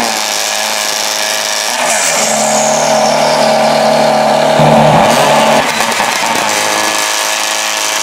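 Subaru Impreza WRC S14's turbocharged flat-four rally engine running at a steady idle, its note dipping and recovering briefly twice.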